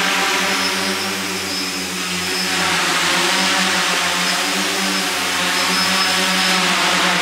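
RC tricopter's three electric motors and propellers whirring steadily in low forward flight, dipping slightly in loudness about a second or two in before rising again.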